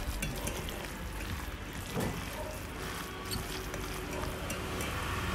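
Hands squishing and mashing crumbled tofu and ground meat in a stainless steel bowl, a wet squelching with a few light clicks against the bowl, over a steady low hum.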